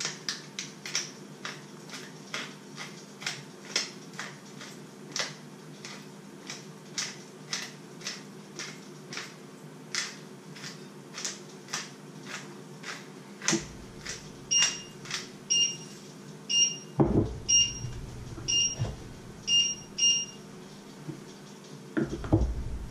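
Hand-twisted spice mill grinding, short crunching strokes about two a second. About halfway through a kitchen appliance gives a string of short high electronic beeps, and there are a few dull thumps.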